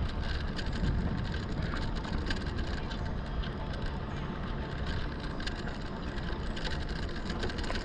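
Riding noise from a Lectric XP fat-tyre e-bike rolling along a trail: a steady low rumble with frequent small clicks and rattles.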